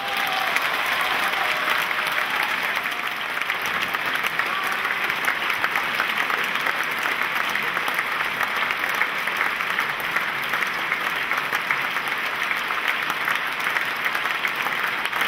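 Large audience applauding steadily, a dense, even wash of clapping.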